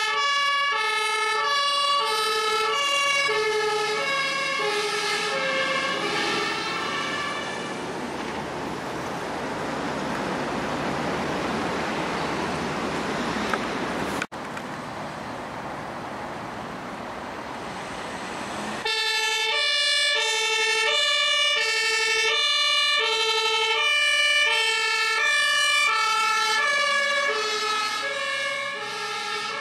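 German ambulance two-tone siren (Martinshorn), its two notes alternating about once a second, fading away over the first several seconds. A steady rushing noise follows, broken by a sharp click about halfway. The two-tone siren then cuts back in abruptly, loud and clear, near the two-thirds mark.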